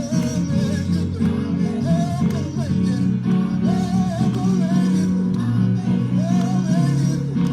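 Instrumental music: sustained chords under a wavering melody line, with a plucked-string sound.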